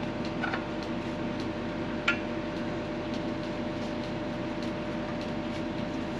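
Yanmar ViO55 mini excavator's diesel engine idling steadily, with a few light clicks and one sharper metallic click about two seconds in from handling the hydraulic hose couplings.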